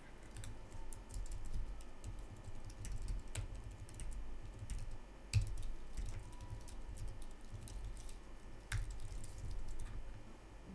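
Typing on a computer keyboard: irregular keystrokes, with one louder key strike about five seconds in.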